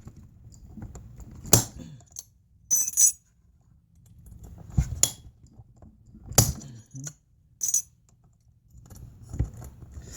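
Scattered sharp metallic clicks and clinks of small hand tools and hardware being handled during disassembly of a car amplifier, about eight separate knocks with pauses between.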